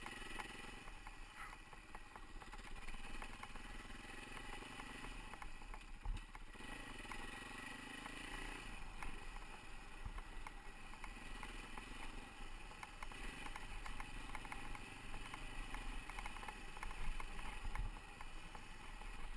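Husaberg FE450 dirt bike's single-cylinder four-stroke engine running while riding a trail, its pitch rising and falling with the throttle. Light chassis clatter and rumbling wind buffeting on the microphone accompany it.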